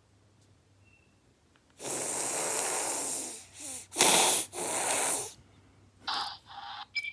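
A series of breathy rushes of air: a long one about two seconds in, a short one, then the loudest, short and sharp, about four seconds in, and another after it. Near the end come two fainter, shorter puffs with a faint tone in them.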